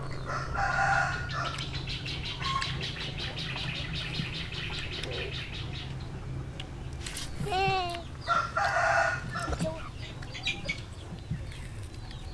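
A rooster crowing twice, near the start and again about eight seconds in, with a fast rhythmic chatter between the crows.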